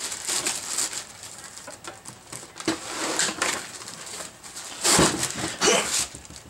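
Rustling and scraping of packing material as a box of mill accessories is unpacked by hand, with two louder bursts about five seconds in.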